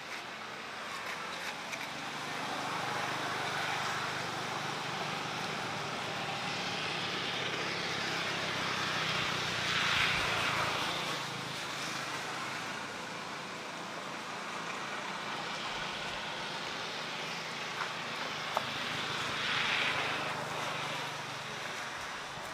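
Distant motor-vehicle drone, a steady hum with a noisy wash that swells around the middle and again near the end.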